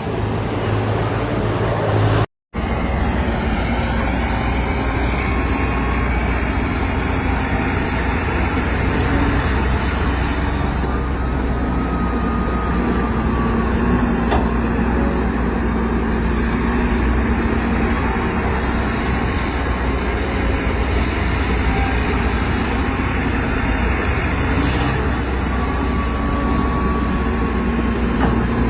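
Hydraulic excavator's diesel engine running steadily, a heavy low rumble with a faint whine above it. The sound cuts out abruptly for a moment about two seconds in.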